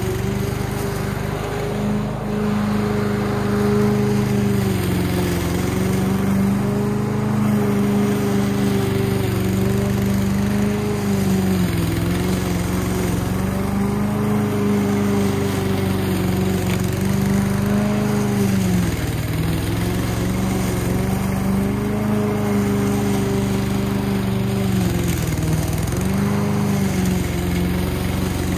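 Masport Contractor walk-behind petrol lawn mower running at full throttle while cutting long, overgrown grass. Its steady engine note sags briefly four times, about every seven seconds, as the thick grass loads the engine, and picks back up each time.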